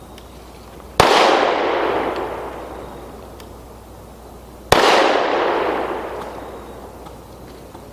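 Two pistol shots about four seconds apart, each a sharp crack followed by a long fading tail.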